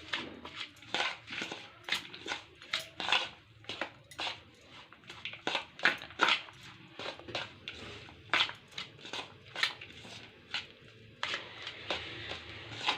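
A stuffing of grated boiled egg, carrot and onion being mixed in a bowl: a steady run of short scrapes and clicks, several a second.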